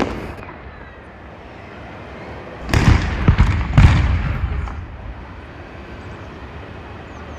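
Daytime fireworks going off: a cluster of sharp bangs about three seconds in, the two loudest about a second apart, dying away into a low rumble.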